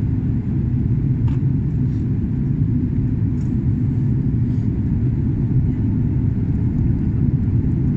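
Steady low rumble of engine and airflow noise inside a jet airliner's cabin during descent.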